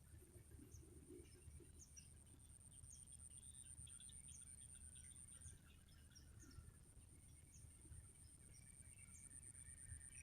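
Faint outdoor ambience: a steady high-pitched insect drone, with many short bird chirps scattered throughout.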